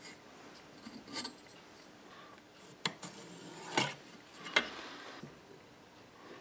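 Light handling noises: four short clicks and knocks spread over a few seconds, with faint rustling between, as a wooden strip is picked up and set in place on the sharpener jig.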